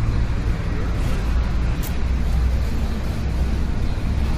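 City street traffic ambience: a steady low rumble of passing road vehicles with a continuous wash of street noise.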